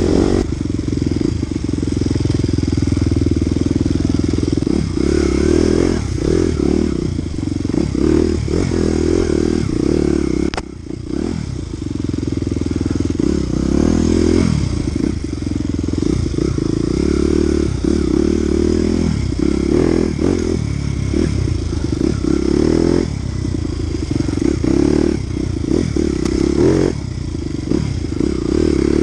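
Off-road dirt bike engine, close up from the onboard camera, revving hard and falling back again and again as the throttle is opened and shut. About ten and a half seconds in it briefly drops away.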